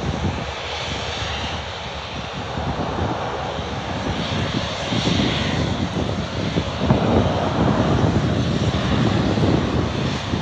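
Aircraft engine rumble, growing louder about halfway through, mixed with wind buffeting the microphone.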